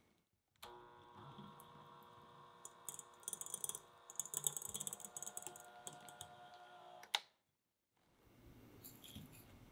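Electric hand mixer beating cubes of unsalted butter in a glass bowl: a steady motor whine with quick clicking and clattering as the beaters strike the butter and the bowl, busiest in the middle. It cuts off abruptly about seven seconds in, and a softer rustle follows near the end.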